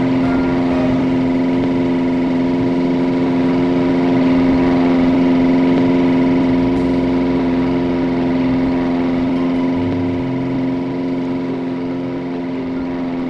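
Electric fan motor humming steadily, an unchanging stack of low tones with a faint whoosh of air.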